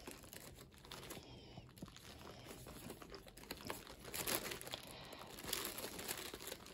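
Faint rustling and scratching of chunky t-shirt yarn being worked with a crochet hook, with irregular soft clicks. It gets a little louder about four seconds in and again near six seconds.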